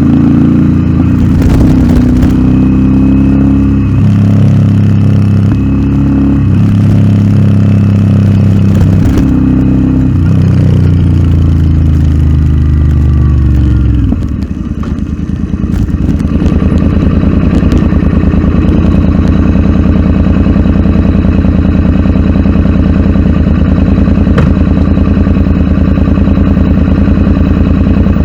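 Royal Enfield Interceptor 650's parallel-twin engine through an aftermarket Nuke exhaust, its pitch climbing and falling repeatedly as it revs and shifts. About 14 seconds in it drops off, then settles into steady low running.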